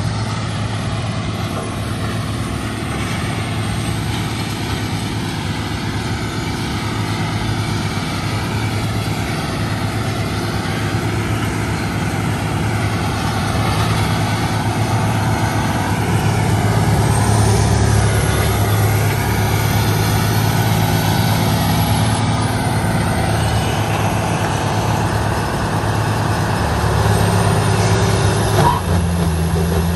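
Tracked horizontal wood grinder running hard under load, its big diesel engine droning steadily as it chews through land-clearing debris. A tracked excavator feeding it works alongside. The sound swells a little louder in the second half and again near the end.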